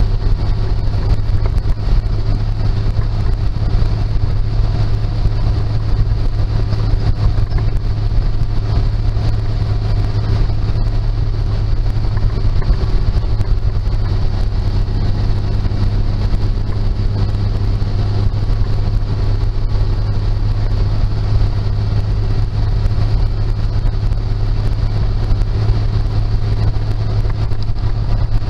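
1948 Dodge 1.5-ton truck's flathead six-cylinder engine and drivetrain running steadily, heard from inside the cab. It holds an even low hum with no clear rev change or gear shift.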